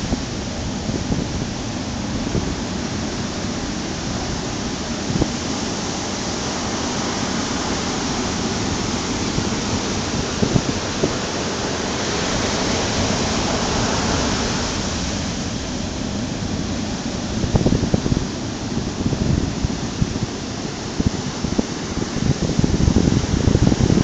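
Ocean surf breaking and washing up the beach: a continuous rush of foam that swells in the middle. Uneven low buffeting in the last third, wind on the microphone.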